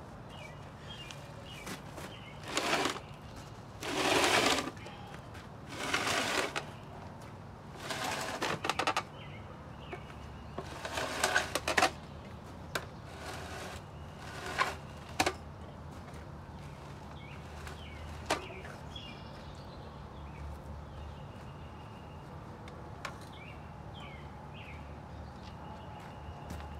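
Bursts of crunching and scraping on gravel, about eight in the first fifteen seconds, as a bare car engine is shifted across the ground onto a wooden crate. Birds chirp briefly now and then, and more often in the quieter second half.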